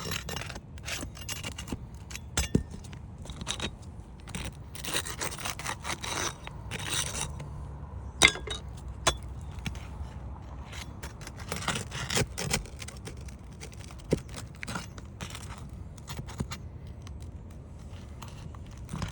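Irregular scraping and sharp clicks of a tool worked under brittle three-tab asphalt shingles to free the roofing nails, with one sharp click standing out about eight seconds in.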